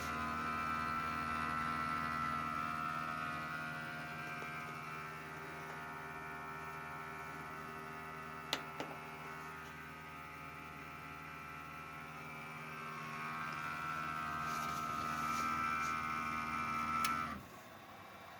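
Corsair CS650M power supply making a steady electrical hum with a higher whine over it that swells and fades: a faulty noise in a unit only days old. A sharp click comes about halfway, and the noise cuts off suddenly near the end.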